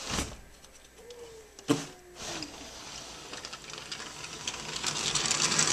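A sliding glass door rolling along its track, a dense clicking rattle that builds steadily louder toward the end, after a sharp knock a little under two seconds in.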